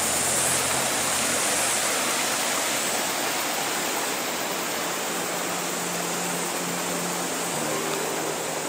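River water rushing steadily over and between boulders in a small cascade, an even, unbroken hiss of flowing water.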